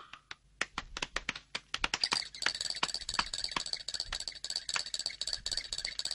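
Rapid, irregular clicking and tapping, sparse at first and then dense, with a faint steady high-pitched tone joining about two seconds in.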